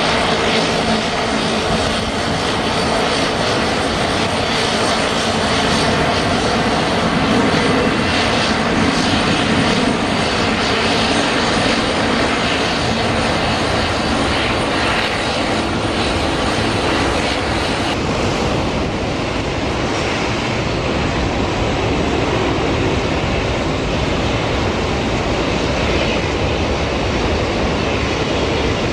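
Boeing 747 jet engines during a landing roll-out: a loud, steady rush of jet noise. About 18 seconds in, it turns duller and more distant, the rumble of another 747 on the runway.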